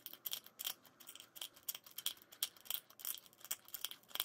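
Small plastic pump-spray candy bottle clicking as its pump nozzle is pressed over and over, several rapid, irregular clicks a second, before the candy begins to spray out.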